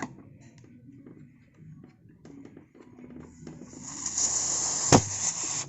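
Light handling clicks, then about three and a half seconds in a hiss builds and runs for about two seconds, with a sharp click near the end: a fuel injector tester being pressurised before an injector test.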